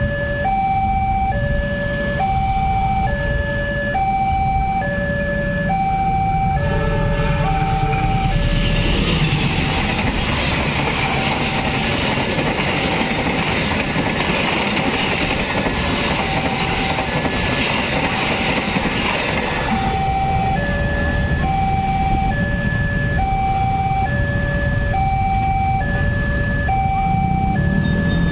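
Level-crossing warning alarm from the loudspeaker on the crossing post, sounding a two-tone chime that alternates high and low about once a second. From about 8 seconds in, the Argo Bromo Anggrek passenger train passes and its wheels on the rails make a steady rushing noise that drowns the alarm for about twelve seconds. The alarm is then heard again.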